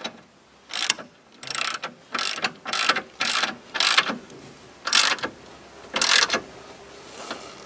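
Hand socket ratchet clicking in about eight short back-swings, roughly one every half-second, with a pause after the sixth, as it runs a nut down a bolt.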